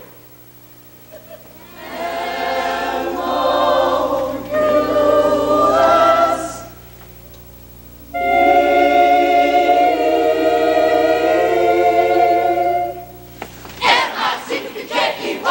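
Mixed choir of male and female voices singing sustained chords: a short phrase, a brief pause, then one long held chord. About fourteen seconds in, the audience breaks into applause and cheering.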